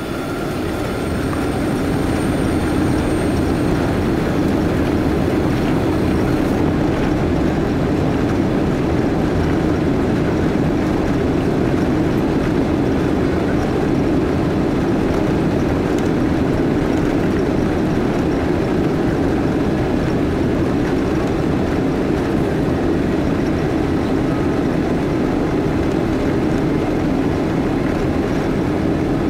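Jet airliner's engines at takeoff thrust, with the rumble of the wheels on the runway during the takeoff roll, heard from inside the cabin. The noise swells over the first couple of seconds, then holds steady and loud.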